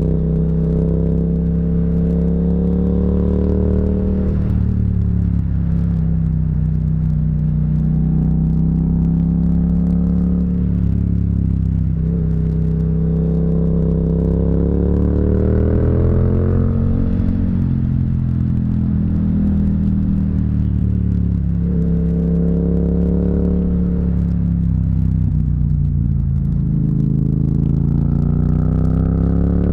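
Yamaha MT-07's parallel-twin engine under way, its note climbing and falling several times as the bike accelerates and eases off through a run of curves.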